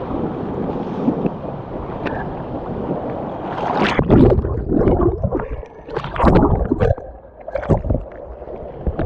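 River water rushing steadily around a whitewater kayak. From about four seconds in come several loud, irregular splashes of paddle strokes in the water.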